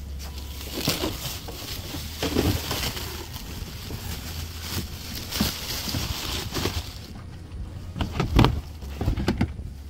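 Plastic stretch wrap crinkling and rustling as it is pulled off a pallet, then a few knocks of a plastic storage tote being handled, the loudest about eight seconds in. Under it runs a low rumble of wind on the microphone.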